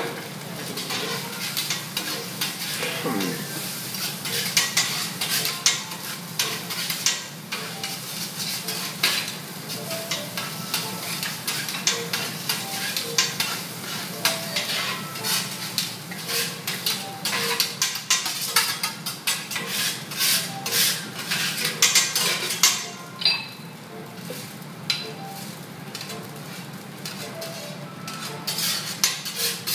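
Metal spatulas clacking and scraping on a steel teppanyaki griddle, tossing and chopping fried rice over a steady sizzle. About three-quarters of the way through the sizzle dies down, leaving sparser clacks and scrapes.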